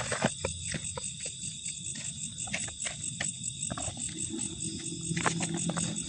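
Insects chirring steadily in a high, continuous, shimmering drone, with scattered light clicks and taps over it.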